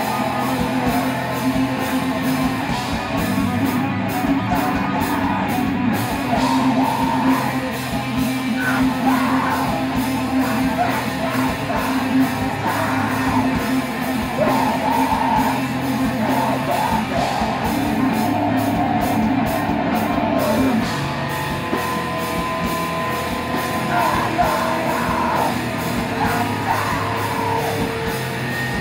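Live heavy metal band playing: distorted electric guitar, bass guitar and drums, with shouted vocals over them.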